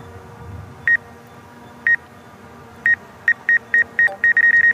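Obstacle-proximity warning beeps from a DJI Mavic Air 2 controller. Short high beeps at one pitch come about once a second, then quicken into a rapid string near the end. They are the sign that the drone's forward sensors have detected an obstacle close ahead.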